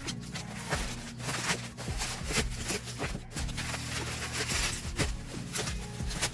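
Close-up handling sounds of unboxing: rustling, scraping and light taps and clicks, over soft background music with steady low notes.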